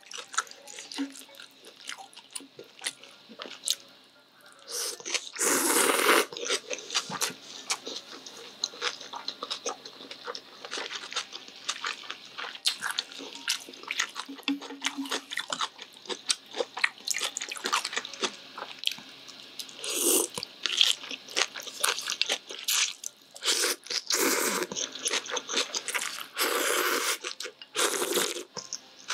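Close-miked eating sounds of cold naengmyeon noodles in spicy broth: steady wet chewing and smacking, broken by several louder slurps of noodles and broth.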